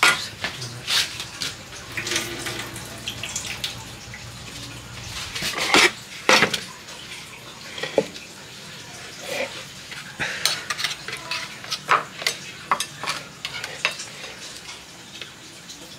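A metal spoon clinking and scraping against a glass bowl and a metal baking tray while chili sauce is scooped out, with a string of sharp clinks, loudest a little past the middle.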